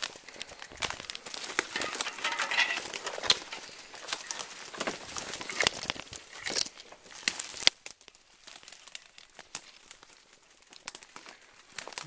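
Twigs, leaves and branches rustling and snapping as someone pushes through forest undergrowth on foot: a dense run of crackles and rustles that thins to a few faint clicks about eight seconds in.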